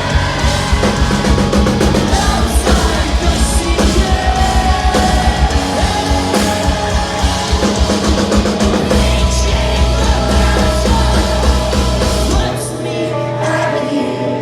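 Live post-hardcore band playing loud, with a singing voice over distorted guitars and fast drumming. About nine seconds in, the fast kick-drum pattern gives way to a held bass note, and near the end the bass drops out, leaving a thinner sound.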